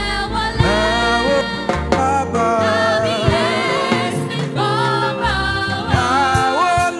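Yoruba gospel praise music: choir-style singing over a band with bass and percussion.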